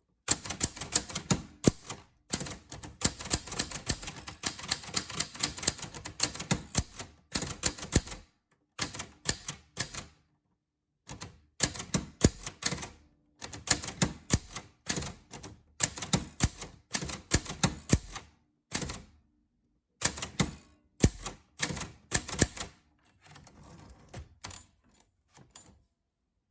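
Typewriter being typed on: quick runs of key strikes in bursts of a second or two, broken by short pauses, the strikes growing fainter near the end.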